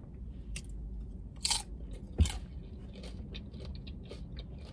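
Close-up chewing of a mouthful of Chipotle burrito bowl with lettuce: scattered crisp crunches and small mouth clicks, the loudest a sharp snap about two seconds in.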